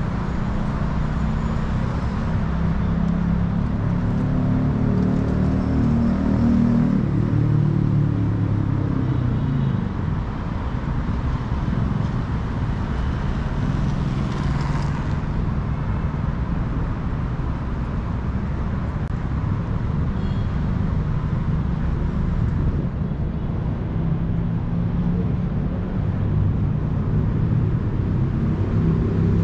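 City street traffic: a steady low rumble of cars and other vehicles passing, with one engine's note rising and then falling about five seconds in.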